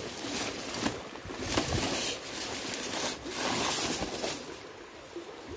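Dry reed stalks and a woven plastic sack rustling and crackling as a sack-wrapped wire-mesh snake trap is handled in the brush, in irregular bursts that die down about four and a half seconds in.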